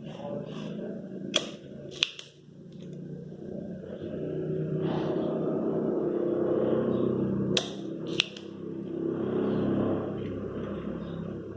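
Desoldering work on a relay on a microwave oven's control board: two pairs of sharp snaps, each pair about half a second apart, with a steady low whooshing hum starting about four seconds in and easing off near the end.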